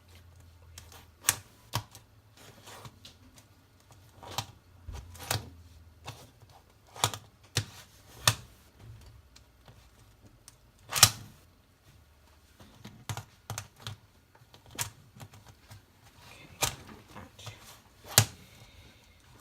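Plastic Rubik's Cube being turned with the feet: irregular clacks and clicks of its layers, spaced unevenly, the loudest about eleven seconds in.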